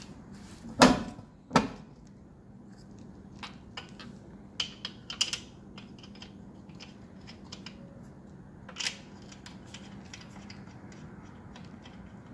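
Scattered metallic clicks and knocks of tools and parts being handled while working on the car, with two sharper knocks about a second in and a few light taps after, over a faint steady hum.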